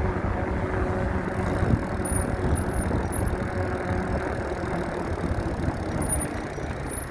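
An engine running steadily: a low, even rumble with a faint hum.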